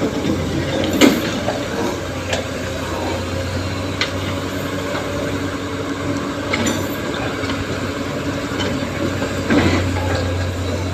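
Excavator's diesel engine running steadily, with a few sharp knocks and clatters as its bucket digs into and scrapes up building rubble.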